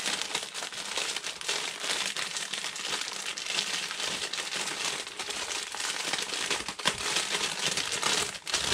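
Clear plastic wrapping around a large roll of lace crinkling steadily as the roll is handled and turned over.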